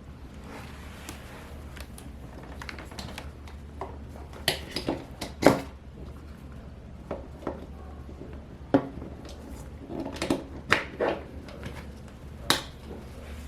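Irregular clicks, taps and light knocks of a laptop and its parts being handled, the sharpest about five and a half seconds in, over a low steady hum.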